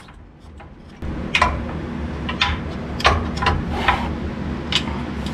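Sharp metallic clinks at irregular intervals as tools work at a bolt under a truck's chassis. A steady low hum starts about a second in.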